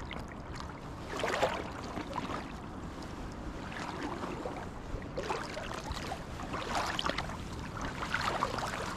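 Running river water with wind buffeting the microphone as a low rumble, and now and then a brief louder rush of water noise.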